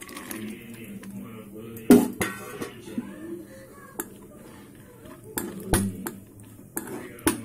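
Spoon clinking and scraping against a kadai while stirring cashews in ghee: a handful of sharp knocks, the loudest about two seconds in.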